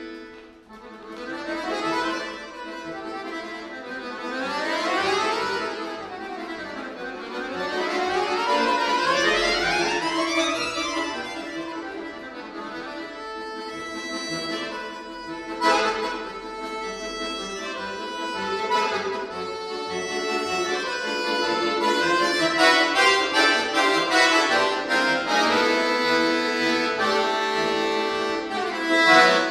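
Solo chromatic button accordion playing concert music: fast runs sweep up and down through the first half, then dense chords follow, with a sharp accent about halfway through and a loud one near the end.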